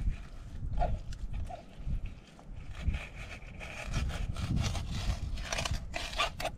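Knife slicing through a raw fish fillet and scraping along a plastic cutting board as the skin is cut away: a run of short rasping strokes that come thicker toward the end.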